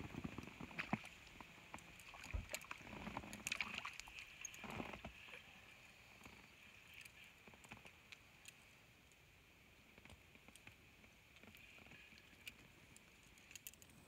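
Faint splashes, knocks and clicks from a small boat as a fish on a float rod is hooked and played to the surface. These sounds are busiest in the first five seconds, and a faint steady high-pitched hum runs beneath them.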